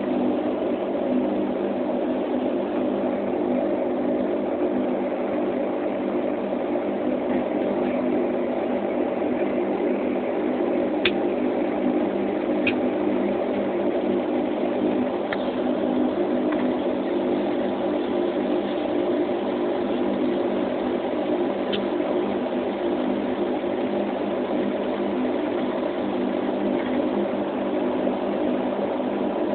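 Steady drone of a turboprop airliner's engines and propellers heard inside the passenger cabin, with a thin steady hum above it and a few faint clicks.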